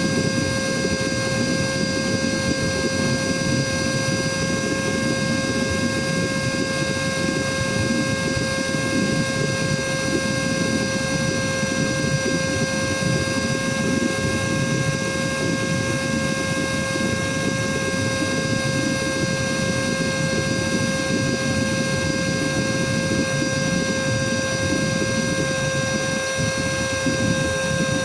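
Cordless vacuum cleaner's motor running steadily, a constant whine over the rush of air, on a battery that is running down: its power and sound are dropping as the charge drains.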